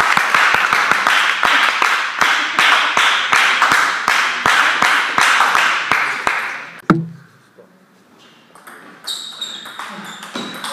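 Applause in a sports hall: many hands clapping, dying away about seven seconds in. After a single knock and a short lull, a table tennis ball clicks and pings off bats and table as a rally starts near the end.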